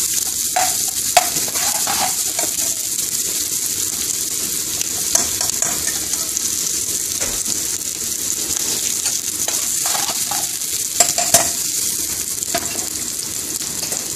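Chopped onions sizzling in hot vegetable oil in a frying pan, a steady hiss, with a metal spoon stirring and knocking against the pan a few times: once about a second in, once near five seconds and twice close together around eleven seconds.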